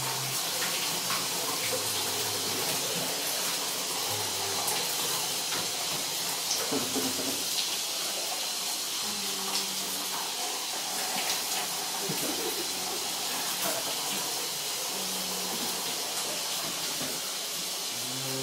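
Shower spray running steadily onto a person and the stall floor, a constant hiss of water. Short low hum-like tones come and go over it now and then.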